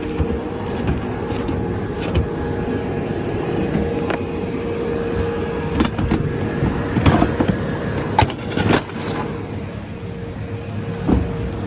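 A vehicle engine running steadily with a constant hum, broken by several sharp metallic knocks and clanks.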